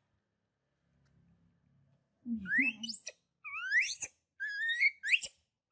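A baby macaque gives three high-pitched rising calls, each under a second long, starting about two seconds in. It is calling for its mother, wanting milk.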